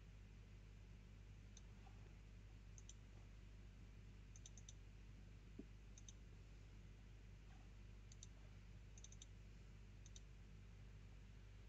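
Near silence: faint steady room hum, with soft computer-mouse clicks scattered through, some single and some in quick runs of two or three.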